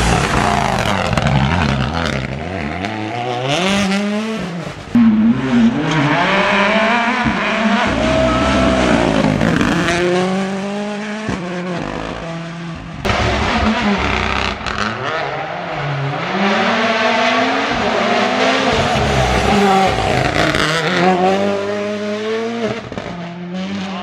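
Rally1 cars (Toyota GR Yaris and Ford Puma) with turbocharged four-cylinder engines accelerating hard out of corners, one after another. The engine note climbs and drops back again and again as the drivers shift up through the gears.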